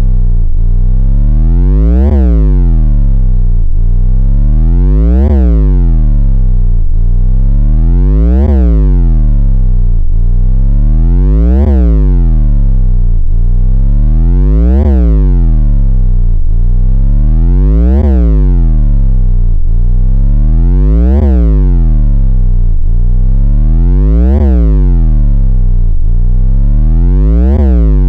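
Synthesized bass drop: a loud, deep synth tone with a buzzy stack of overtones, its pitch sweeping down and back up, repeating about every three seconds.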